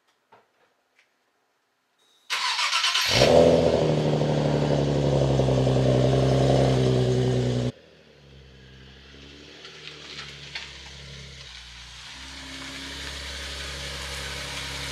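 Nissan 370Z's 3.7-litre V6 starting about two seconds in: a brief crank, then it catches and runs steadily at a loud, even idle. About halfway through it drops abruptly to a much quieter steady engine sound that slowly grows louder.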